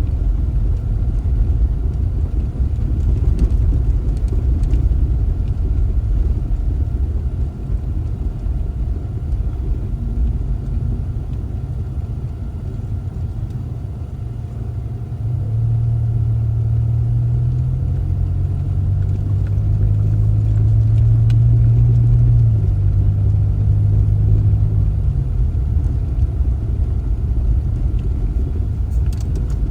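A car driving: a steady low road rumble, with an engine hum that comes up about halfway through and shifts in pitch a few times before fading out near the end.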